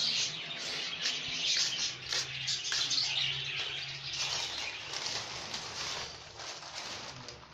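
A flock of small caged birds in an aviary chirping busily, many quick high calls overlapping throughout.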